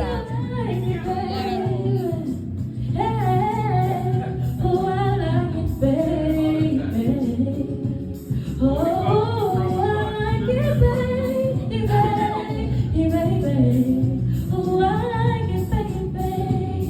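A woman singing with a sliding, bending melody over backing music with a steady low bass.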